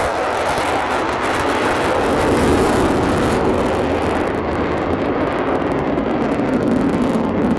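Loud jet noise from an F-15J Eagle's twin turbofan engines as the fighter flies past, its pitch sinking toward the end.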